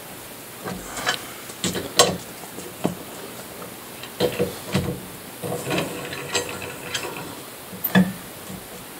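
Four-way lug wrench clinking and knocking against the lug nuts and steel wheel of a spare being fitted, in irregular metallic clicks with a brief ring in the middle, loudest about two seconds in and near the end.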